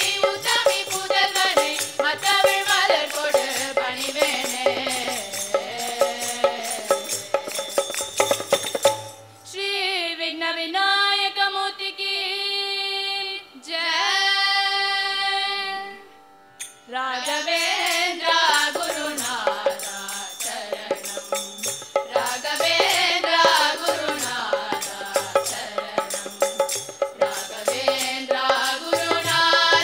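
Children's group singing a Hindu bhajan in unison into microphones, with a hand drum keeping the beat. About nine seconds in the drum drops out and the voices sing slow, held notes alone for some eight seconds before the drum comes back in.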